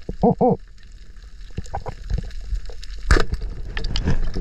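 Underwater recording from a free-diver's camera. Two short, wavering muffled vocal hums come right at the start, with scattered small clicks throughout. A single sharp knock about three seconds in is the loudest sound.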